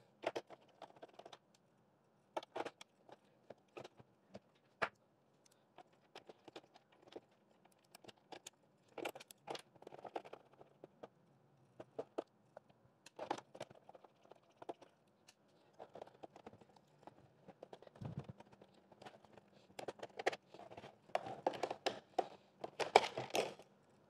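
Small clicks, scrapes and rattles of a screwdriver working screws out of the plastic underside of a Xiaomi Vacuum Robot V1, with the hard plastic casing being handled. The clicks come scattered and irregular, busier and louder near the end as the robot body is moved.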